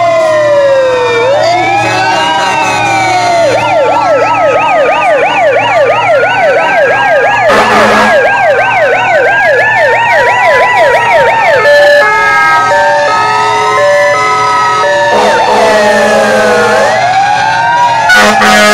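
Several fire engine sirens wailing at once, rising and falling out of step; about three and a half seconds in one switches to a fast yelp for some eight seconds, then a pulsing two-tone beep takes over. Fire truck air horns blast briefly near the middle, again later, and just before the end.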